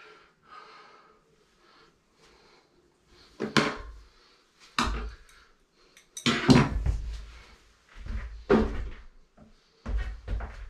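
Several separate knocks and thuds, each about a second or two apart, from things handled at an open toilet floor flange on a tiled floor.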